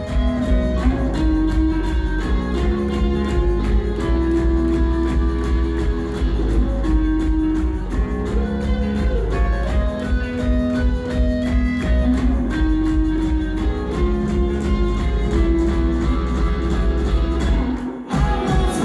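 A live rock band playing an instrumental passage: electric guitars holding sustained melody notes over bass guitar and a steady drum beat, with a brief break near the end.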